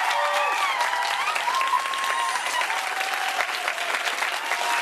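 Audience applauding, with voices cheering over the dense clapping.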